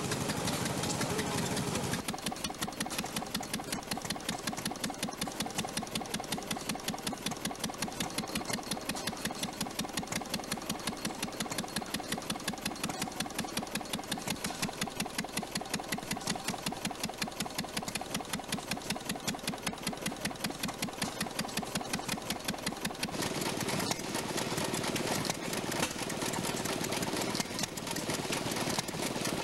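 Small antique single-cylinder stationary engine running, with a rapid, even beat. About three-quarters of the way through, this gives way to another old stationary engine, the one belt-driving a water pump, which has an uneven beat and a couple of louder pops.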